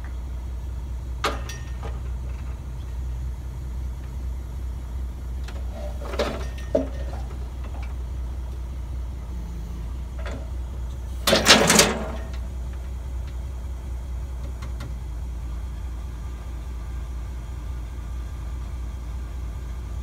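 A sawmill engine runs with a steady low hum as the mill head rolls along its track on a freshly repaired track roller. A few short knocks come early, and a brief loud clatter comes about halfway through.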